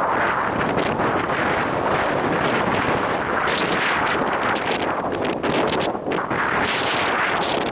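Strong gusting wind buffeting the microphone, a loud, steady rushing with brief sharper gusts.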